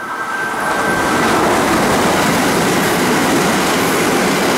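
Kintetsu limited express train passing through the station at speed: a loud, steady rush of wheels on rail and moving air as the cars go by. The rush builds over the first second, while a thin high whine fades out.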